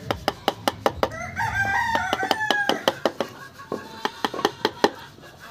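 Rapid, regular taps of a carving chisel being driven into wood, about four or five a second. About a second in a rooster crows once, louder than the tapping, for nearly two seconds.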